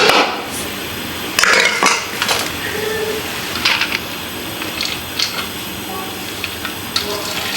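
A metal spoon clinks and scrapes against a cooking pot in a few irregular strokes over a steady background hiss, as the remaining parboiled rice is spooned over the chicken to layer the biryani.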